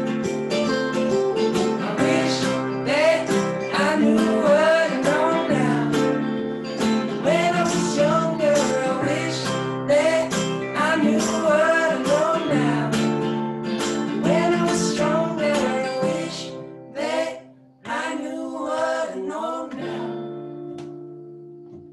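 Live acoustic band: two acoustic guitars strummed, with a Nord Electro 5 stage keyboard and a man singing. The music thins out and grows quieter near the end.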